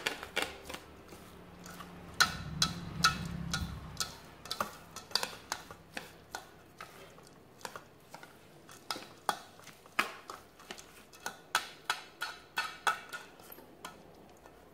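Chopsticks clicking and scraping against a stainless steel mixing bowl as a shredded vegetable filling is tossed, an irregular run of sharp ticks. A low hum sits underneath for a couple of seconds about two seconds in.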